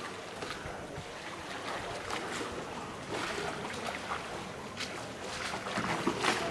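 Canal water splashing and lapping around a gondola as it is rowed along, in irregular small splashes that come thicker near the end.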